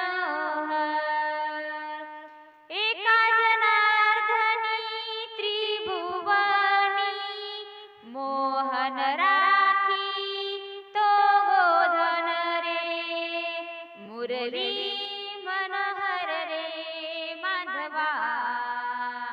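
A woman singing a Marathi gavlan, a devotional song to Krishna, in long drawn-out melodic phrases with short breaks between them.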